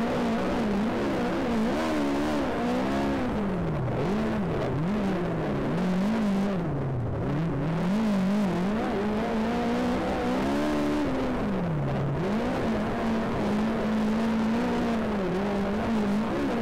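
Speedway race car engine running hard, its pitch dropping repeatedly as the throttle comes off and climbing again as it goes back on, with a steadier stretch near the end.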